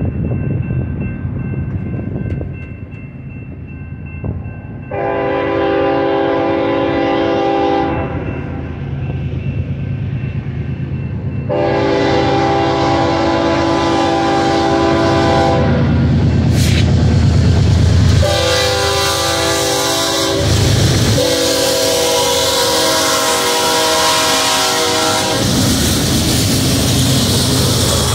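Air horn of an approaching BNSF diesel-hauled train sounding four blasts, three long and one shorter, the last two close together: the grade-crossing signal. Under it is the low, steady rumble of the lead diesel locomotives, growing louder as they draw near and pass.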